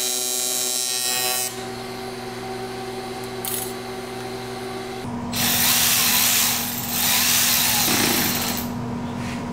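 TIG welding arc buzzing on an aluminium intake pipe, stopping about a second and a half in, leaving a steady hum. From about five seconds in, a cordless power tool runs twice, each run about a second and a half long, tightening the intake hose clamps.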